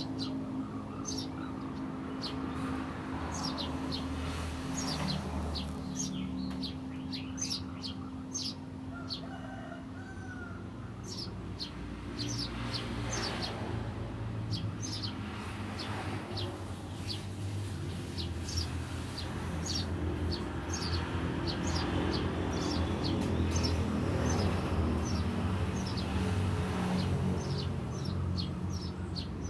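Eurasian tree sparrows (burung gereja) chirping in a rapid, continuous 'ngriwik' chatter of many short, high chirps, over a steady low hum.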